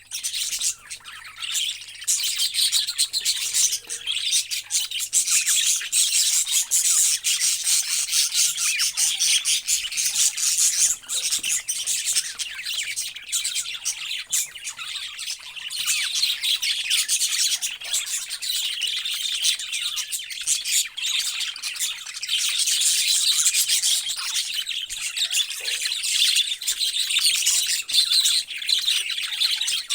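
A flock of parrots chattering and chirping continuously, many calls overlapping with occasional squawks.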